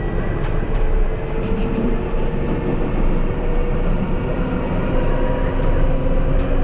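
Alstom Citadis tram running along the track, heard from inside behind the driver's cab: a steady rumble of the car on the rails with a whine that slowly rises in pitch, and a few faint ticks.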